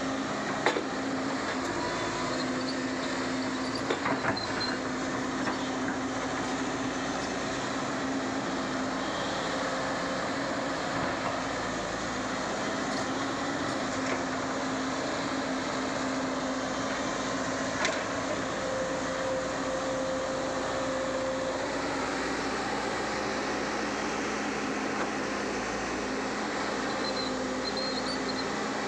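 Diesel engine of earthmoving machinery running steadily while levelling ground, with a few sharp knocks, the loudest about a second in and around four seconds in.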